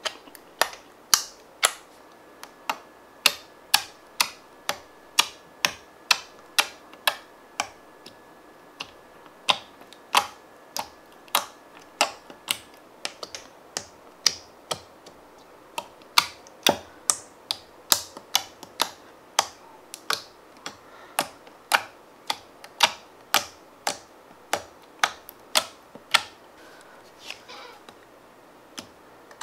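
Fingers poking and pressing clear crystal slime in small plastic tubs, making sharp clicking pops about twice a second.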